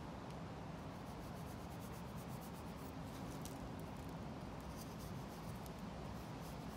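Faint scratching and scraping of a small knife cutting into wet concrete mix, with scattered light scrapes over a steady low background rumble.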